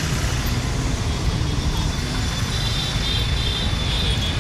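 Heavy city road traffic from a two-wheeler in a crowd of motorcycles, scooters and microbuses: steady engine and road noise with a low rumble.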